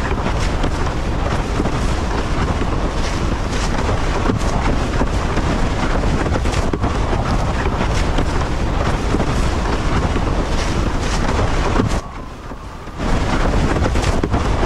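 Loud, steady rush of wind and breaking surf, with heavy wind rumble on the microphone. It drops away for about a second near the end, then comes back.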